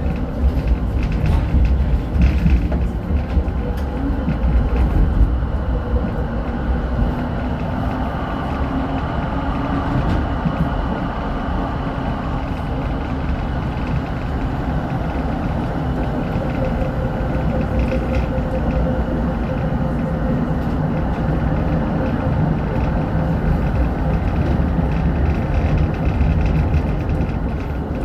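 Inside a 1981 LHB GT6 articulated tram under way: a steady rumble of the running gear on the rails, with a faint hum from the drive under it.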